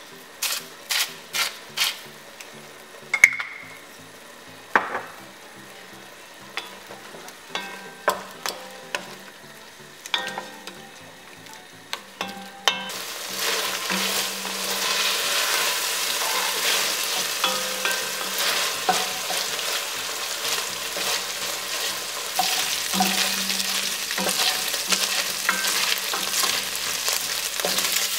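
Chicken thighs frying in oil in an enamelled pot, with a run of sharp clicks over a quiet sizzle at first. About halfway through, the sizzle turns loud and steady as a wooden spoon stirs and scrapes the browning pieces.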